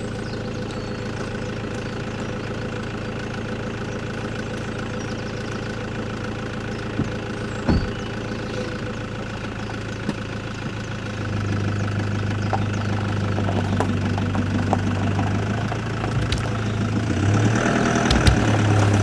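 Truck engine running steadily, then pulling harder about eleven seconds in and again near the end as it drags a strapped tree stem out of the ground. A couple of sharp knocks come about seven to eight seconds in.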